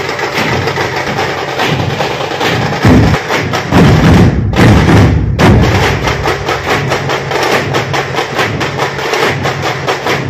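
A dhol pathak, a group of large barrel-shaped dhol drums, beaten together in a fast, dense rhythm with sharp stick strikes over deep thumps. The thumps grow heavier a few seconds in.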